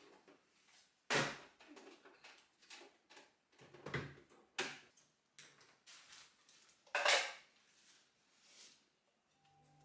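Knocks and clunks of a portable electric sewing machine being set down on a wooden desk and its power cord being handled. There are several separate sharp knocks; the loudest comes about a second in and another about seven seconds in.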